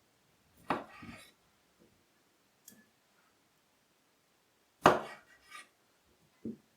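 A kitchen knife cutting seedless grapes in half, its blade knocking on a cutting board in a few separate strikes. The loudest strikes come just under a second in and about five seconds in, with lighter taps between them.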